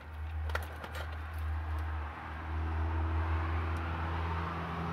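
A low, steady engine rumble, with a fainter pitched hum joining it about halfway through. A few light clicks sound about half a second in.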